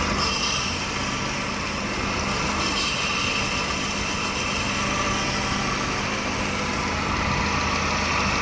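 Hyundai i10 petrol engine idling steadily; the car has a P0300 multiple-cylinder misfire.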